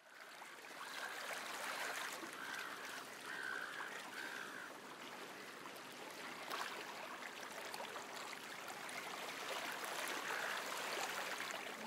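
Running water, a steady wash that fades in at the start and holds at a modest level.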